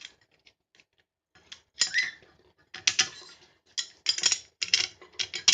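Metal clicks, clinks and short scrapes from a SOL 5-in-1 survival tool as its butterfly screw is loosened and the shovel head is taken off the handle. The clicks are sparse at first and come thick and fast after about a second and a half.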